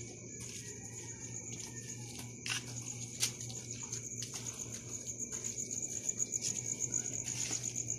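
Crickets or other night insects trilling in a steady, high-pitched chorus that pulses more distinctly in the second half, over a low steady hum, with a sharp click about three seconds in.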